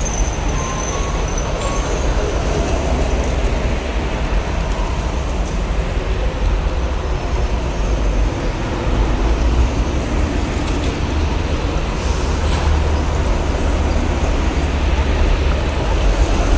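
Steady heavy highway traffic, trucks and buses passing in a continuous deep rumble of engines and tyres.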